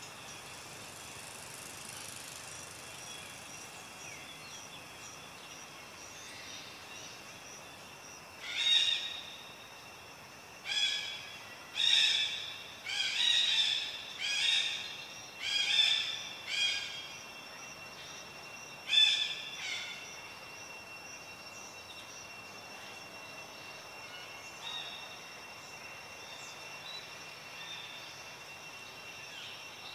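An animal calling outdoors: a run of about ten short, loud, high-pitched calls over some twelve seconds, starting about a third of the way in, over a steady high whine.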